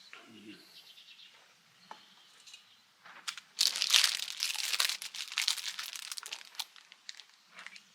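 A crinkling, crumpling noise. It starts about three and a half seconds in, is densest for the next few seconds, and thins to scattered crackles near the end.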